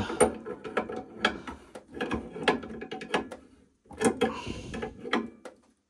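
Spanner tightening the union nut on a gas boiler's injector pipe at the gas valve, a run of irregular metallic clicks and ticks as the tool works the nut.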